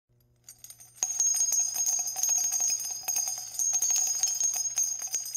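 Small bells jingling in a rapid, continuous shimmer of strikes with a high ringing tone, starting loudly about a second in.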